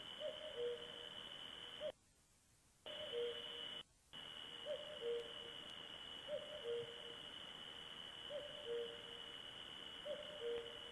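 A bird calling a repeated two-note call, a higher note followed by a lower one, about every one and a half to two seconds, over a steady high-pitched hum. The sound cuts out for about a second two seconds in.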